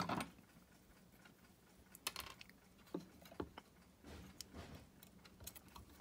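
Faint, scattered small clicks and handling noise of tweezers and fingers working at the pallet fork of a brass clock movement, trying to pop the fork out.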